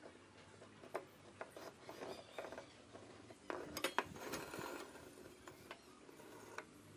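Light handling clicks and knocks of a wooden stop block on a wooden crosscut sled, then a louder cluster of clicks and scraping about halfway through as a metal speed square is set down and slid into place on the sled bed.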